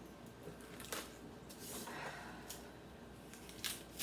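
Quiet kitchen room tone with faint handling sounds: a light click about a second in, then soft rustling.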